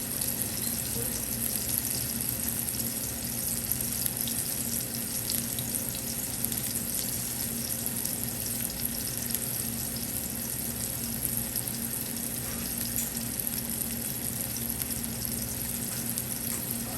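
Skinless chicken breast searing in hot oil in a pan: a steady sizzle with fine crackling, over a steady low hum.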